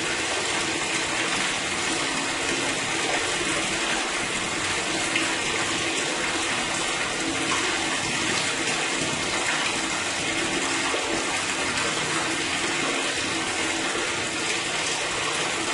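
Water running steadily through a sewer drain, an even, unbroken rush.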